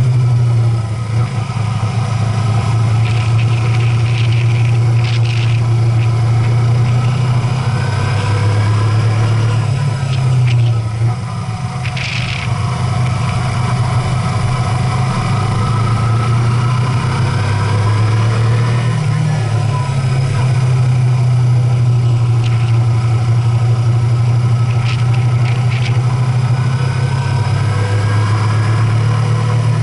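Vehicle engine running steadily with a strong low drone; the drone dips briefly about eleven seconds in and shifts again around nineteen seconds, as with a change of throttle or gear. A few short hissing sounds come over it.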